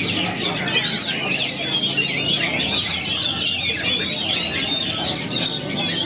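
Dense chorus of songbirds singing at once, many quick, overlapping chirps and whistles, with a caged oriental magpie-robin (kacer) singing among them over a low steady background murmur.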